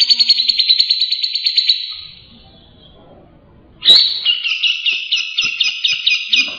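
Long-tailed shrike (cendet) singing two fast, high trilled phrases: the first fades out about two seconds in, and the second starts abruptly with a sharp note about four seconds in.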